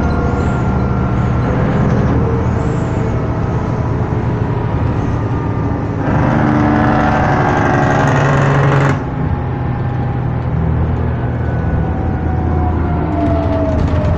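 Interior drone of a 2011 New Flyer D60LFR articulated bus under way at freeway speed: its Cummins ISL 9.8 diesel engine running steadily with road noise and a steady transmission whine. In the middle, a louder stretch of about three seconds cuts off abruptly, and near the end the whine starts to fall in pitch.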